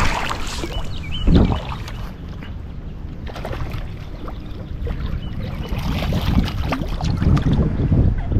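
Wind buffeting the microphone by a river: a steady low rumble, with a louder gust or bump about a second in.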